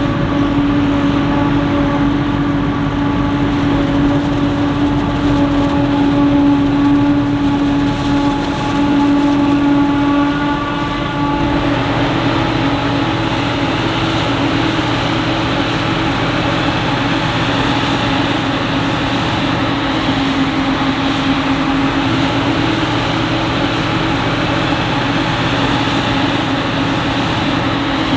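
Heavy farm machinery running steadily during maize chopping: diesel engines under a continuous, pitched machine whine. The sound changes in character a little over a third of the way through, then carries on steady.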